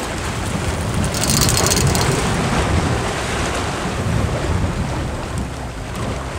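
Wind buffeting the microphone over sea waves washing against the rocks, with a brief hiss about a second in.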